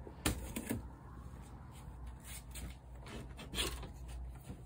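Faint scattered clicks and soft rustles over a low steady hum, with a slightly louder knock about three and a half seconds in.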